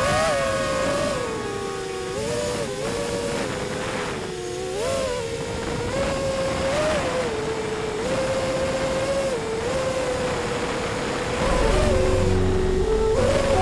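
Racing quadcopter's four Racerstar BR2206 2300KV brushless motors and DALPROP T5050C three-blade propellers whining over wind noise, the pitch rising and falling again and again as the throttle changes in flight.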